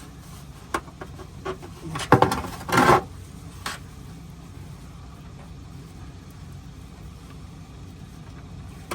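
A few sharp metallic clicks and knocks of hand tools working the gearbox drain plug loose, with one short noisy rush about three seconds in, over a steady low hum.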